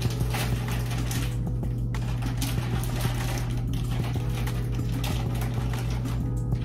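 Quick, irregular taps and clicks of kitchen prep work on the counter, over a steady low hum.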